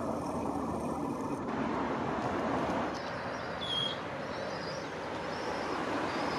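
Steady outdoor background rumble, like distant traffic, with a single short high chirp a little after halfway.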